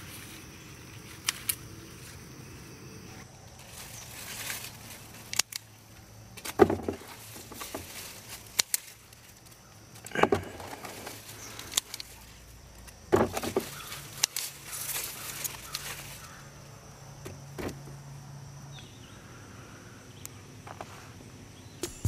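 Scissors snipping through cucumber stems on the vine, a series of sharp metallic clicks a second or more apart, with the vines and leaves rustling between cuts.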